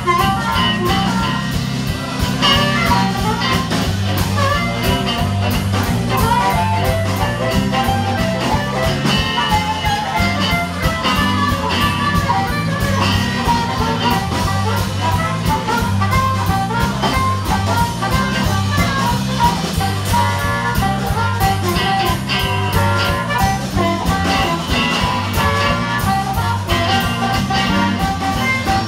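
Live blues band playing an instrumental break: a harmonica cupped to a vocal microphone plays lead over electric guitar, bass guitar and drums, with the bass walking in a steady repeating line.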